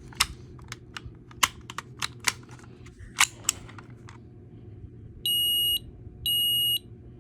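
Kidde i9070 smoke alarm sounding its test signal: two loud, high-pitched beeps, each about half a second long and a second apart, the start of the three-beep temporal pattern. Before the beeps come scattered clicks and knocks from handling the alarm unit.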